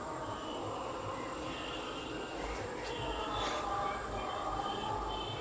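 Steady high-pitched chorus of insects chirring outdoors, with faint short distant tones beneath it.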